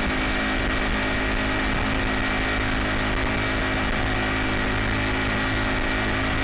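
Honda GX35 35cc single-cylinder four-stroke engine running steadily at an even speed, driving a kayak through the water.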